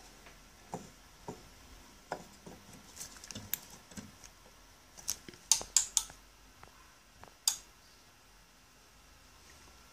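Irregular sharp snaps and crackles, about a dozen, the loudest a quick cluster around five to six seconds in and a single one near seven and a half seconds: electrical sparking from an IC on the Panasonic TH-42PV60E plasma TV's circuit board, part of the fault that left only half the screen working.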